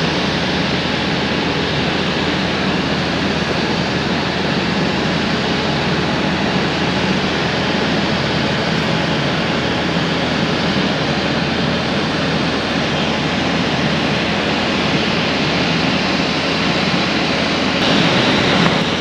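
Boeing 787-8's twin Rolls-Royce Trent 1000 turbofans at taxi power, a steady rushing hiss as the airliner rolls past. Near the end the hiss grows brighter and a little louder.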